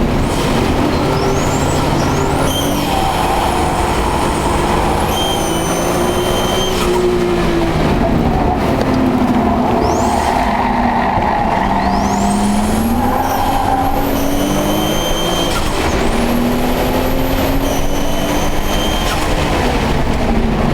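Nissan ER34 Skyline's turbocharged RB25DET straight-six running hard on track, climbing through the revs in about three pulls. A high-pitched whine sweeps up with each pull and holds at high rpm; the owner says it appears only once the oil is hot and wonders whether it is knock, the GT-RS turbo failing or the water pump.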